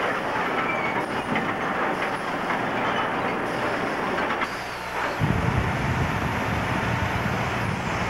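Sawmill machinery running: a log conveyor carries logs up to the mill's second deck with a steady mechanical clatter. About five seconds in, a deeper, heavier rumble comes in.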